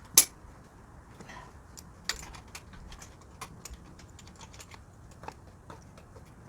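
Hand tools clinking and clicking against metal while working on the engine. There is one sharp clink near the start, another about two seconds in, then lighter irregular ticks.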